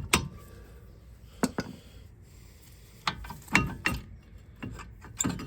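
Irregular sharp metallic clicks and knocks, about nine of them, as a worn front brake pad is worked loose from an Opel Astra G's brake caliper with a screwdriver.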